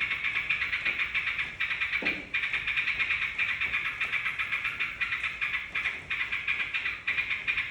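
Lure recording of yellow-vented bulbul (trucukan) calls: a continuous, rapid chattering of high notes that pulses several times a second, with a brief break about two seconds in.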